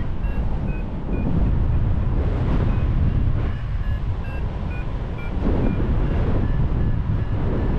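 Wind buffeting the microphone outdoors: a heavy, gusting rumble that eases for a moment midway. Short, faint high-pitched chirps sound now and then on top.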